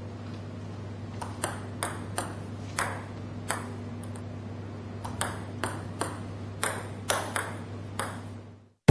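Table tennis ball bouncing: about a dozen light, pinging clicks at uneven spacing over a steady low hum, cutting off near the end.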